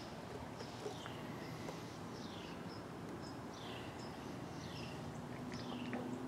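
A bird calling over and over, a short high note that falls in pitch, repeated about once a second.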